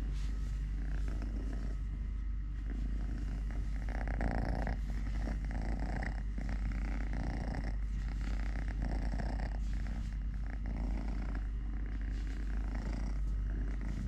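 Kitten purring steadily and continuously.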